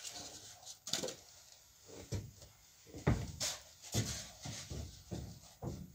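Footsteps thudding and knocking on the wooden joists and boards of an attic floor, irregular, about one step a second, with a few lighter wooden knocks.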